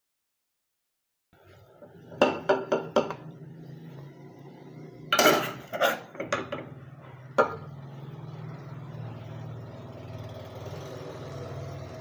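A metal serving spoon clinking and scraping against a metal cooking pot and a serving bowl as curry is ladled out: a quick run of about four clinks, a louder cluster a few seconds later, then a single clink, over a steady low hum.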